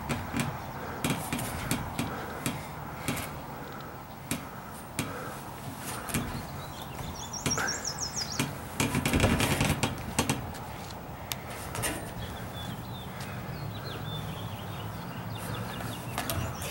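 Hands gripping and shifting on steel pull-up bars, giving scattered sharp metallic clicks and knocks. A bird trills briefly about halfway through, and a low steady hum sets in during the last third.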